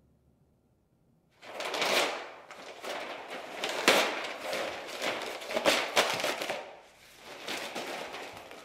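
Paper being ripped off an easel pad and crumpled: a run of crackling tears and scrunches starting about a second and a half in, with a short lull near seven seconds.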